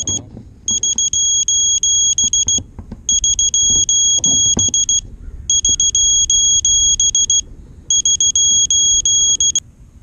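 High-pitched electronic buzzer beeping rapidly in repeated bursts of about two seconds, four bursts with short pauses between them, over a low rumble and a few faint knocks.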